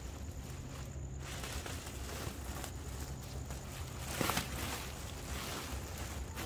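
Black plastic trash bag rustling and crinkling as it is handled around a scuba tank, loudest in a short burst about four seconds in, over a steady low hum.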